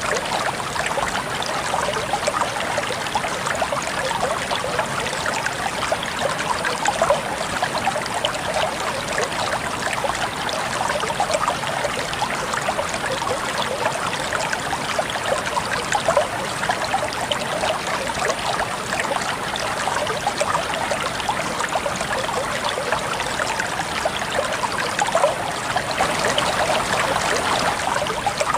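River water flowing steadily, a dense babbling trickle and splash that keeps an even level throughout.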